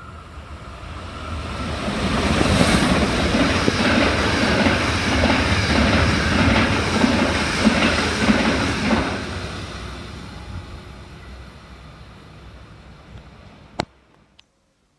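EuroCity passenger train hauled by an ÖBB class 1216 (Italian class E190) electric locomotive passing a station platform. The rolling noise swells as it approaches, and the coach wheels clatter rhythmically over the rail joints as the carriages go by. The sound then fades, with one sharp click near the end.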